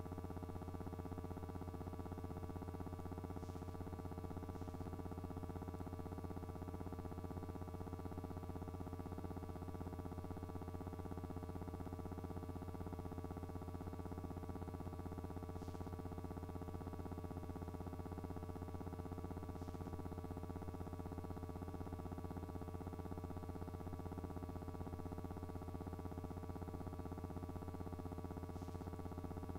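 A steady electrical hum: a low drone with a few higher held tones above it, unchanging throughout, with a few faint ticks.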